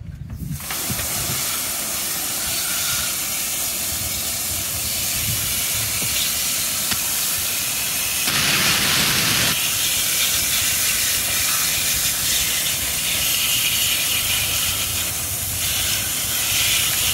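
Garden hose pistol spray nozzle hissing steadily as a fine spray of water washes mud off a plastic toy truck. The spray starts about half a second in and gets briefly louder a little past the middle.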